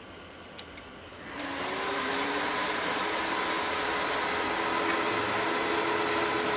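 Two sharp clicks from the Arduino relay board as it switches on and mechanically presses the desktop PC's power button. The NEC ValueOne desktop then powers up, its fans starting with a whir that rises slightly in pitch and then runs steadily.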